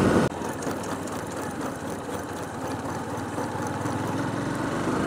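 Motorcycle engine running steadily while riding, with wind and road noise; it grows a little louder toward the end.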